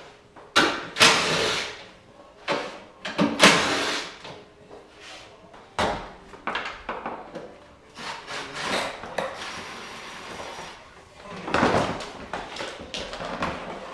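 Irregular knocks, clunks and short scraping noises of parts and tools being handled while a car's front end is taken apart.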